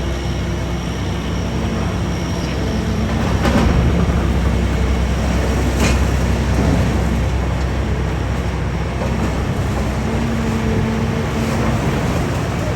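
Heavy demolition excavator's diesel engine running steadily while it breaks up a reinforced-concrete parking structure, with a few sharp knocks and cracks of concrete, the loudest about three and a half and six seconds in.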